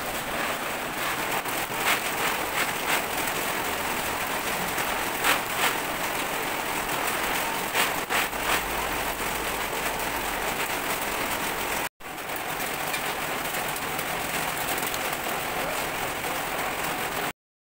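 Steady rain falling, heard as a continuous hiss, with a few short rattles of peanuts being shaken on a flat bamboo winnowing tray.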